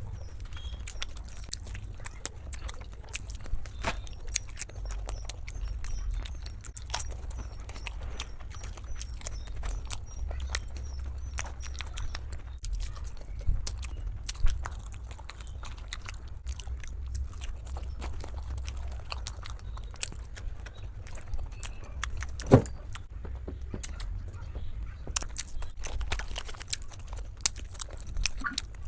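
Close-miked mukbang eating: wet chewing, biting and mouth smacks, a string of short clicks over a low steady hum, with one sharp, louder click about two-thirds of the way through.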